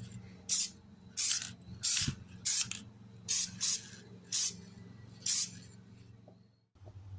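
Aerosol spray can sprayed in about nine short bursts, a quick hiss each time, with brief pauses between them. It stops just past halfway, and music comes in near the end.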